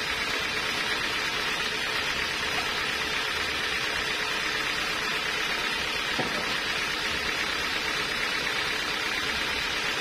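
Sawmill machinery running steadily between cuts, not cutting: an even, unchanging whirring hiss, with one faint knock about six seconds in.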